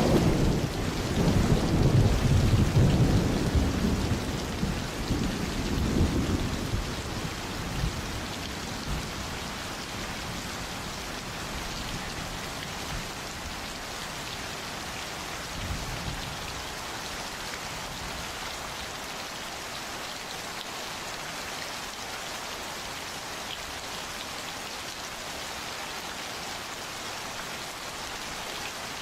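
Steady summer rain falling, with a low rumble of thunder in the first several seconds that fades out about seven seconds in, leaving the even hiss of rain alone.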